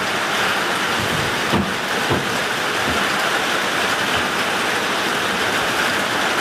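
Rain pouring steadily, an even hiss, with a few soft low knocks about one and a half and two seconds in.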